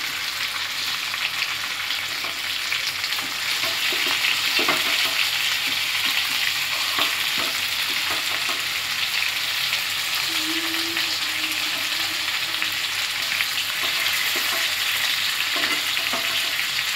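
Marinated chicken pieces sizzling steadily in hot oil in a frying pan, with occasional light clicks and scrapes of metal tongs against the pan as the pieces are turned.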